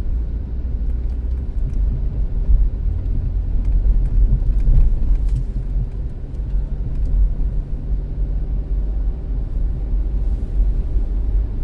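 Steady low rumble of a 2005 Dodge Caravan minivan being driven, engine and road noise heard from inside the cabin.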